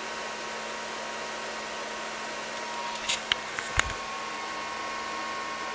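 3D printer cooling fans whirring steadily, with a faint steady hum underneath. Near the middle come a few light clicks and one low thump as the camera is handled and moved.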